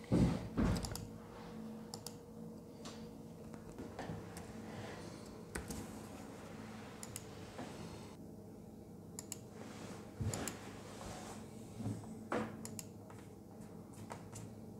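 Scattered clicks and taps on a laptop's touchpad and keyboard, a few at a time, loudest in the first second, over a faint steady hum.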